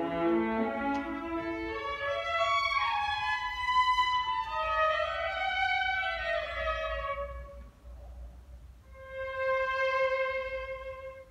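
String orchestra playing: the lines climb from the low strings up into the violins' high register, then fall back. After a brief drop in level, the strings hold one long note that fades near the end.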